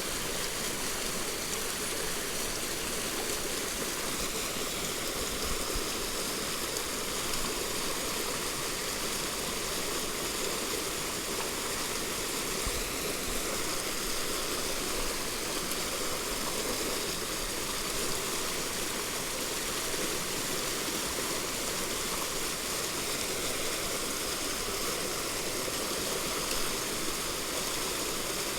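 Mountain stream flowing, a steady continuous rush of water.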